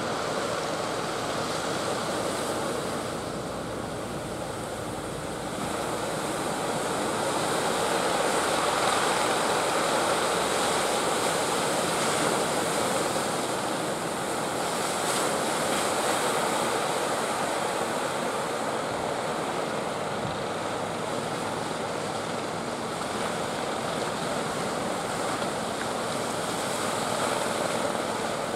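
Waves breaking and washing in, mixed with the steady drone of motorized outrigger fishing boats' engines, which come more to the fore near the end.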